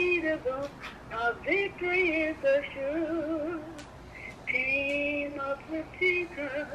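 A grandmother singing over a mobile phone on speakerphone, holding long notes with a wavering pitch in places.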